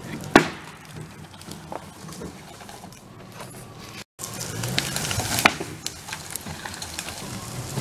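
Pickup truck engine pulling a fallen pine tree by a chain, with the log and its branches cracking and scraping along the dirt. A sharp knock comes about half a second in; after a brief break about four seconds in, the engine and the cracking are louder.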